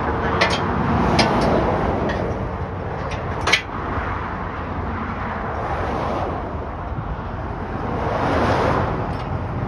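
Highway traffic rushing past, with one vehicle swelling by near the end. A few sharp clicks or knocks come in the first few seconds, the loudest about three and a half seconds in.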